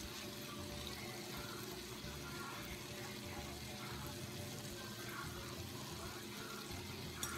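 Cornbread balls deep-frying in a pot of hot oil, making a steady bubbling sizzle.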